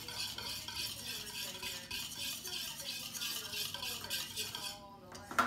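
Metal wire whisk stirring glue and warm water in a plastic bowl, a steady swishing scrape that stops about five seconds in, followed by a short knock near the end.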